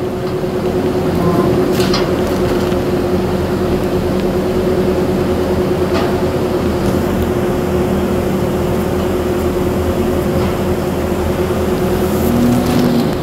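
Steady machine hum holding one constant low tone, with a couple of faint clicks.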